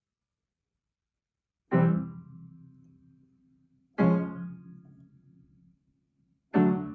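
Closing music: after a short silence, three chords struck one after another, about two and a half seconds apart, each ringing out and fading.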